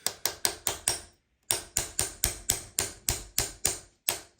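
Sharp, evenly spaced clicks, about four a second, breaking off briefly about a second in and then going on.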